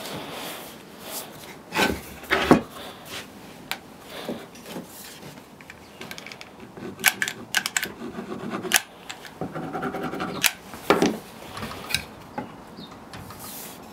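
Oak blocks handled on a wooden workbench: several sharp knocks as they are set down and shifted, the loudest about two and a half seconds in, between stretches of rubbing and scraping as the pieces are slid and pressed together.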